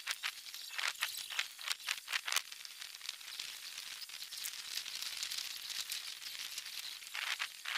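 Light clicks and rattles of plastic bottle, cup and aluminium slingshot parts being handled and set down on a tiled floor, dense for the first couple of seconds and again near the end, with a steady soft hiss in between.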